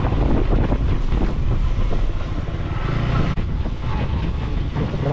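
Wind rushing over an action camera's microphone on a moving KTM motorcycle, with the bike's engine running underneath.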